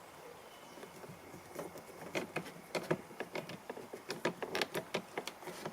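Small screw being driven into the plastic door-handle bezel of a car door with a screwdriver: a run of light, irregular clicks and ticks, starting a second or two in.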